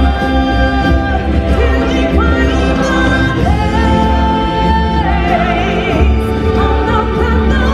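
Music from a live stage musical show: voices singing held notes over a full orchestral backing with a steady bass. About halfway through, one voice holds a long wavering note.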